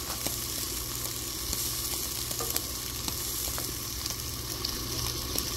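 Cream sauce with vegetables and spinach sizzling and bubbling in a cast-iron skillet on a gas griddle, with a steady hiss. A wooden spoon stirs it, making scattered light clicks against the pan, over a low steady hum.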